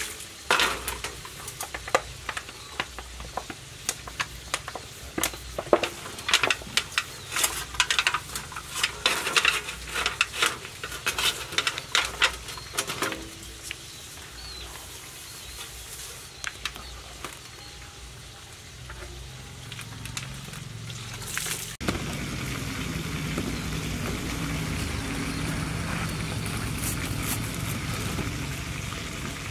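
Metal wok being handled and scrubbed: a run of sharp scraping and clanking strokes for about thirteen seconds, then quieter. Near the end the sound changes abruptly to a steady background hiss.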